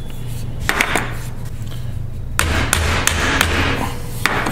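Hammer tapping a new door-hinge bushing into an AMC Javelin hinge clamped in a steel bench vise, with a wood block between hammer and bushing. A couple of taps come just under a second in, then a run of about six taps roughly every half second.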